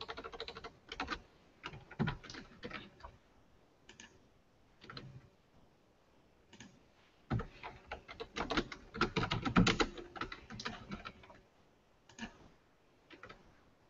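Typing on a computer keyboard in irregular flurries of keystrokes, with a dense run about halfway through and short pauses between.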